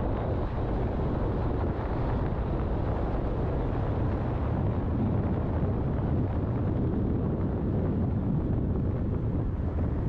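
Steady wind rush and road noise from a car driving at speed, heard through a camera microphone mounted on the outside of the car.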